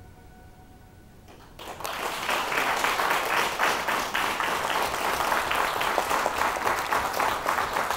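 Audience applauding, breaking out about one and a half seconds in after a brief quiet.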